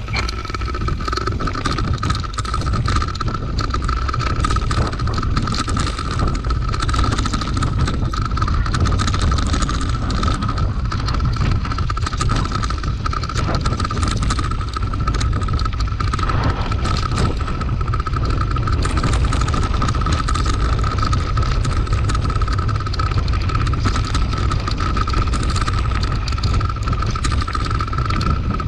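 Mountain bike descending a gravel dirt road at speed: wind buffeting the microphone, tyres crunching and the bike rattling over loose stones, with a steady high-pitched whine throughout.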